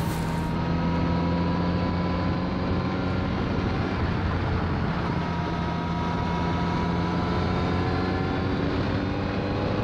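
Motorcycle engine running at speed, with wind rush at the camera. The engine note climbs slowly and drops back lower about five seconds in and again near eight seconds.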